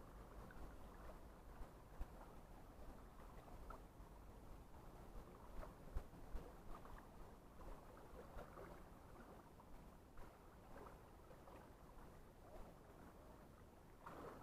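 Near silence: a faint, even wash of small sea waves on the rocky shore, with a few soft knocks.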